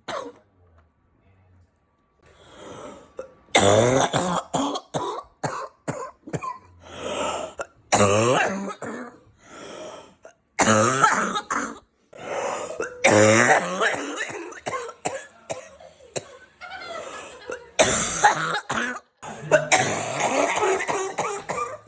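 People coughing, loud and forced, in fits of repeated hacking coughs with throat clearing. The coughing starts about two seconds in and goes on in bursts with short gaps.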